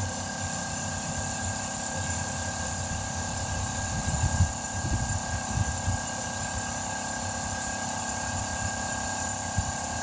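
Tire being inflated through a compressor air hose: a steady hiss and hum of pumped air, with a few low bumps about four to six seconds in.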